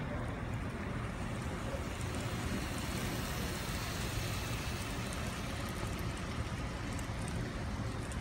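N-scale model freight train running past close by: a steady whir and rattle of its motor and wheels on the track, slightly brighter in the middle as the locomotive and first cars go by.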